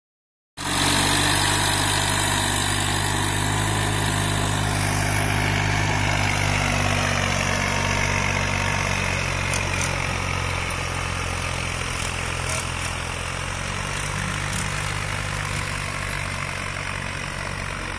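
Swaraj 963 FE tractor's diesel engine running steadily as the tractor pulls a cultivator across the field. It fades gradually as the tractor moves away.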